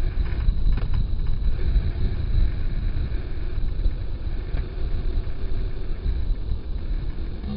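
Wind buffeting the microphone of a camera on a moving bicycle, a gusty low rumble, over city street traffic.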